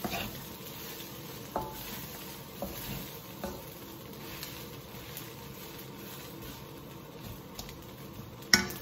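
Fried rice sizzling in a hot wok while a wooden spatula stirs and scrapes it, with a few light taps against the pan. One sharp knock comes near the end.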